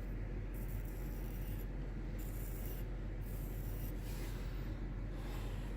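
Several faint rasping strokes, roughly one a second, from a freshly sharpened knife edge scraping over skin as it shaves arm hair.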